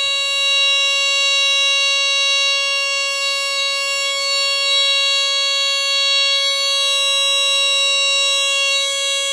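Mastercraft 52-0256 smoke detector, a rebrand of the First Alert SA76RS, sounding its squealer horn in alarm after being set off with aerosol test smoke: one loud, steady, unbroken tone.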